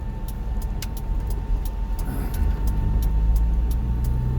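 Road and engine noise inside a moving car's cabin: a steady low rumble, with a faint steady high whine and a few light clicks scattered through it.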